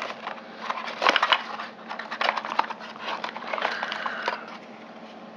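Cardboard packaging handled and opened by hand: irregular scraping, crinkling and tapping of a small box's flaps and contents, loudest about a second in and quieter near the end.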